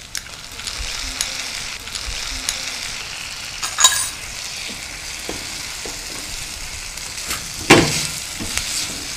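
Chopped tomatoes dropped into a hot, oiled non-stick pan of onions and green chillies, sizzling as they fry. A wooden spatula stirs them, scraping and knocking against the pan, with sharper knocks about four seconds in and near the end.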